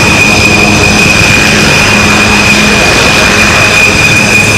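Dassault Rafale's twin M88 turbofan engines running as the jet rolls along the runway: a steady high whine over a constant rushing noise.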